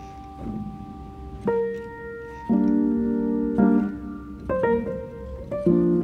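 Background music: piano chords struck about once a second.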